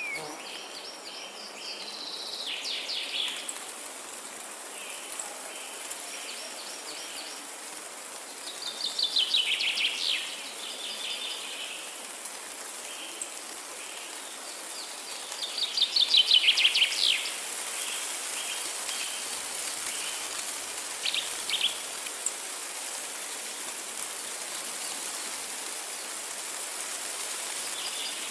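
Steady hiss of light rain with a songbird singing over it: rapid trills of about two seconds each, the loudest two near the middle, with softer short phrases in between.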